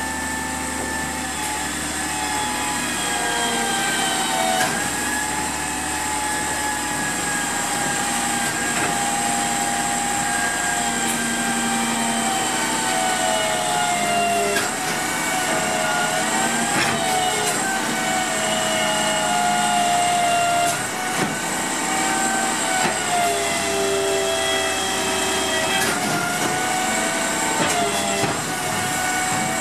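Automated side-loader recycling truck compacting its load: the engine runs under a hydraulic whine whose pitch dips and rises again every few seconds as the packer cycles. There are a few brief knocks from the packing cardboard and metalwork.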